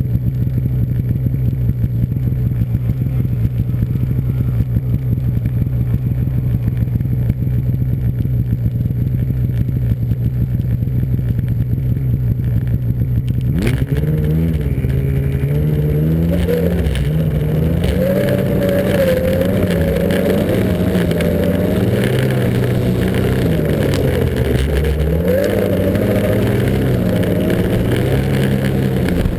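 Snowmobile engine running at a steady low speed, then after a click about halfway through revving up and running harder, its pitch rising and falling with the throttle.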